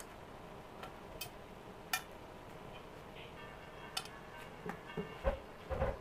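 An old electric wood planer being handled during disassembly: a few sharp clicks and taps of its metal and plastic parts, then a run of knocks and two dull thumps near the end as the planer body is turned over and set down.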